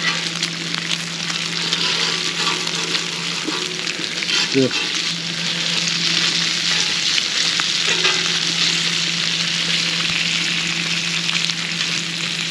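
Burger patties sizzling on a wire grill grate directly over charcoal: a steady crackling hiss with scattered small pops and clicks.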